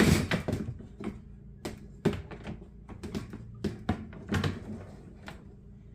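Irregular knocks and clicks of dishwasher parts being handled, about a dozen over several seconds, the loudest right at the start.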